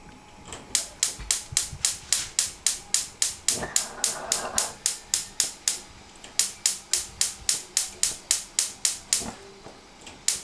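Rapid, even mechanical clicking at about four clicks a second, in runs broken by short pauses near the middle and near the end.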